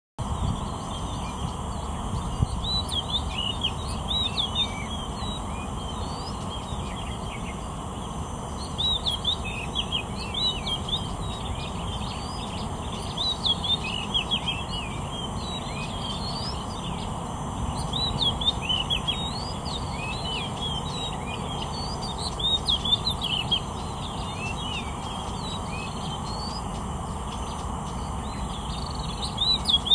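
Male oriental magpie-robin singing: bouts of quick, varied whistled phrases a second or two long, with pauses between them, over steady background noise.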